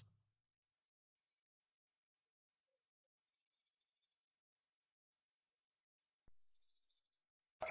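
Crickets chirping faintly as night ambience: short high chirps, a few a second. A sudden loud crash cuts in at the very end.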